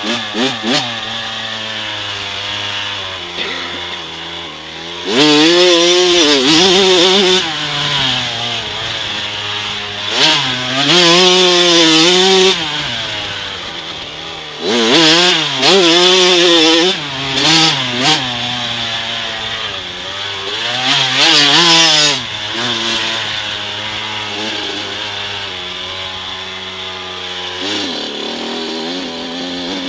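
2009 Kawasaki KX105 supermini's two-stroke single-cylinder engine revving hard in about four surges, its pitch rising and falling, and dropping back to a lower note between them as the rider accelerates and backs off around the dirt track.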